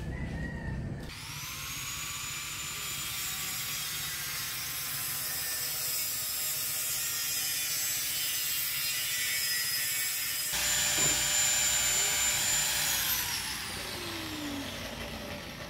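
A small electric motor spins up with a high whine about a second in, runs steadily with a hiss, shifts in tone about ten seconds in, then winds down over the last couple of seconds.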